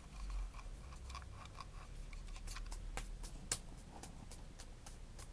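Faint, irregular small plastic clicks and taps from a wireless computer mouse being handled and turned over in the hands, with one sharper click about three and a half seconds in.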